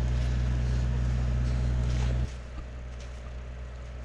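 An engine running steadily with a low hum, which cuts off suddenly about two seconds in, leaving a quieter low hum.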